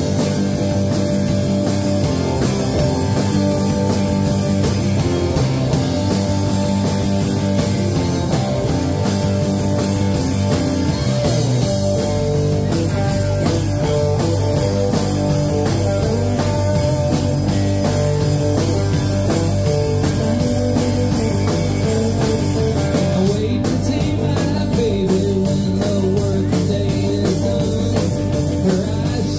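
Live rock band playing: electric and acoustic guitars over bass guitar and drum kit, loud and steady, with the low end filling out about twelve seconds in.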